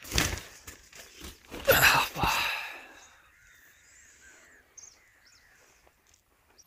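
Tent fabric rustling and footsteps on grass for the first two and a half seconds as someone climbs out of a tent, then quieter with a few faint high bird chirps.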